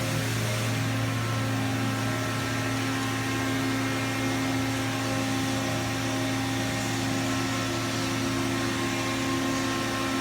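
Enshu five-axis CNC milling machine running: a steady machine hum made of several steady tones over an even hiss, with no knocks or changes in speed.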